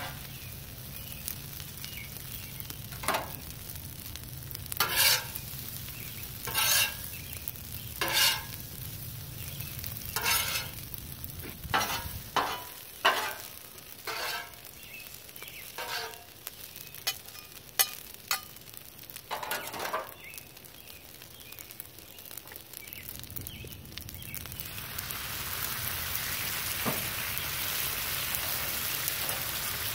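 Noodles and vegetables sizzling on a Blackstone flat-top griddle, with repeated sharp clacks and scrapes of metal tongs and a spatula on the steel cooktop as the food is tossed. The sizzle grows louder and hissier over the last few seconds.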